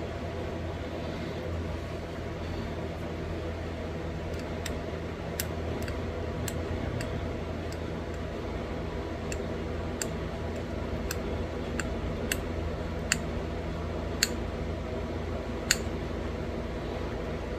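Pressure flaking a small stone bird point: about a dozen sharp clicks as tiny flakes snap off the edge, spaced irregularly, over a steady background hum.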